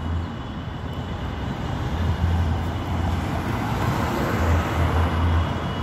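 Roadside traffic noise: a steady wash of passing vehicles that swells a little toward the middle, with an uneven low rumble of wind on the phone's microphone.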